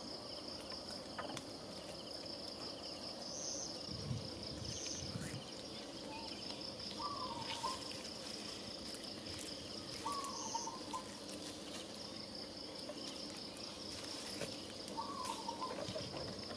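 Insects, crickets or cicadas, calling in a steady, high, finely pulsing chorus. A short warbling call cuts in three times over it, and there are a few faint clicks.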